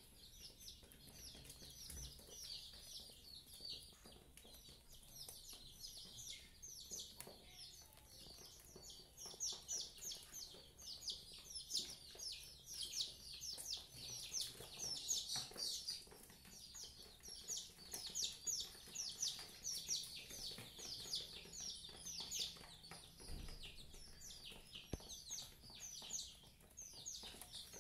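Birds chirping faintly, with many short high chirps a second overlapping one another.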